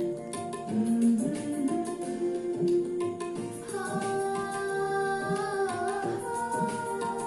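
Music from a Hindi song: an instrumental passage with plucked strings under a melody line, with higher held notes coming in a little past halfway.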